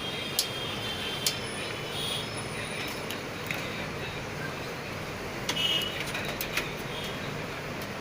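Scattered sharp clicks and taps from computer hardware parts being handled and fitted, about half a dozen, over a steady background rumble.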